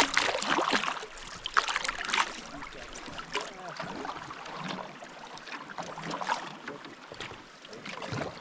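Canoe running fast water: paddle strokes, with water splashing and gurgling around the hull. The splashes are loudest in the first two seconds.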